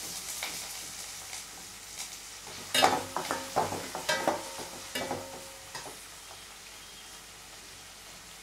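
Chopped onions sizzling in hot oil in a stainless steel pan, the sizzle slowly getting quieter. About three seconds in, a metal slotted spatula stirs them for a few seconds, scraping and clinking against the pan.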